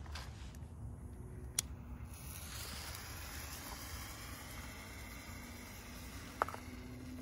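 A Veline magenta firework star burning with a steady hiss that starts about two seconds in and dies down near the end. A sharp click comes just before the hiss and another near the end.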